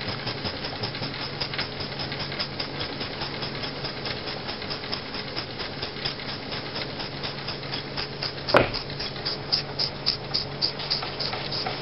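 J. Falk 145 toy steam engine running down on its remaining steam after the gas burner is turned off: a quick, even ticking clatter of the piston and flywheel over a low steady hum. A single sharp knock comes about eight and a half seconds in.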